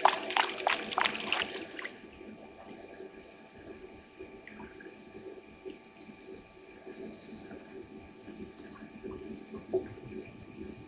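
Blacksmith lapwing giving a quick run of sharp, metallic 'tink' calls over the first two seconds, over a steady high trill of crickets.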